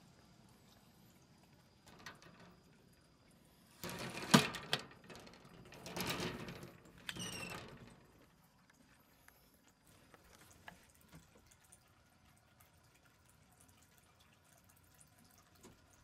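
Rustling and sharp knocks of things being shifted around a curtain and a wire cage, about four seconds in and lasting some four seconds, with one louder knock early on and a brief high squeak near the end of it. Otherwise faint room tone.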